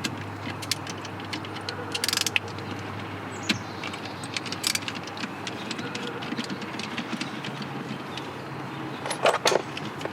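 Scattered clicks, small metal rattles and scrapes of a Phillips screwdriver working tight screws out of plastic console trim, with a few brief louder rustles, over a steady low hum.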